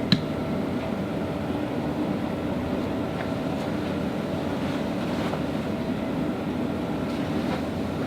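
Steady machine hum with a faint steady tone in it, and one sharp click just after the start.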